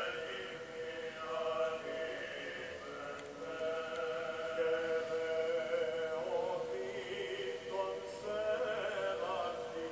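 Background music of slow chant-like singing with long held notes.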